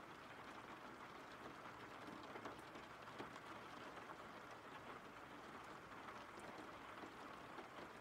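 Faint, steady rain: an even hiss with scattered light drop ticks.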